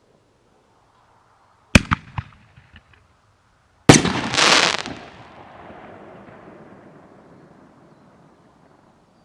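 A consumer aerial firework shell launching from its tube with a sharp bang and a few quick pops. About two seconds later it breaks overhead with a louder bang, then about a second of dense crackle and a long fading echo.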